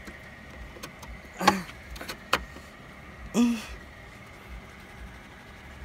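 Hard plastic clicks and knocks as a truck's headlight housing and grille surround are pushed and wiggled into place, with two brief vocal grunts, the louder one about a second and a half in and another in the middle.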